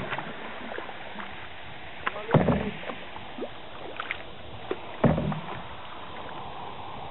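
Canoe paddle strokes: the blade dipping and pulling through the water, with two loud strokes about two and a half seconds apart and a few light knocks between them, over a steady hiss of moving water.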